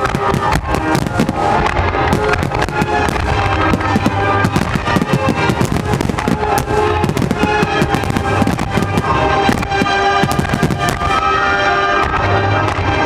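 Fireworks grand finale: a dense, rapid barrage of shell bursts and crackling over loud music.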